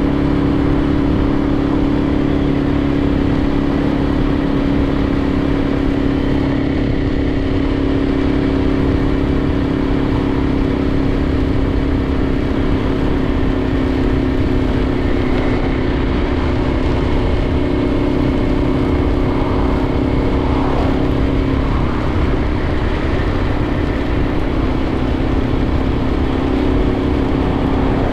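Suzuki TU250x's air-cooled 250 cc single-cylinder engine running at a steady cruising speed, its note holding nearly constant, over a steady rush of road and wind noise.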